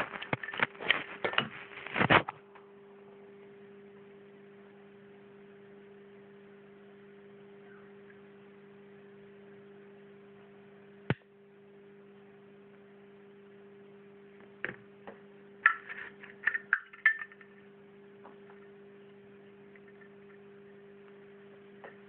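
Metal flip-top lighter being handled: a quick run of clattering metal clicks at the start, then a steady low hum. Over the hum come one sharp click about halfway through and, a few seconds later, a cluster of clicks and clinks as the insert and case are worked.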